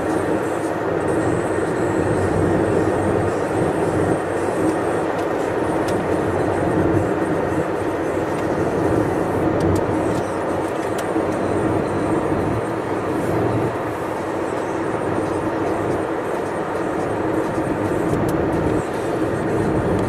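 Steady road and engine noise heard from inside a car cruising along a highway, with tyre and wind noise and no change in pace.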